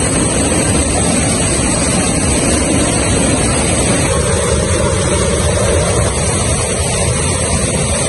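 Waterfall pouring down close by: a loud, steady rush of falling water.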